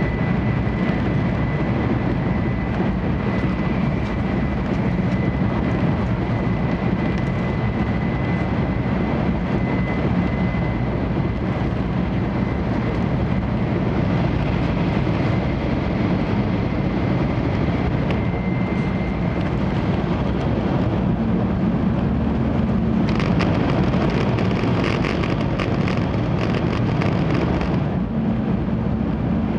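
Series 700-7000 Railstar Shinkansen heard from inside the passenger car while running: a steady low rumble from the wheels and running gear, with a faint high steady tone over the first twenty seconds or so. About 23 seconds in, a rough crackling hiss joins for about five seconds, then drops away.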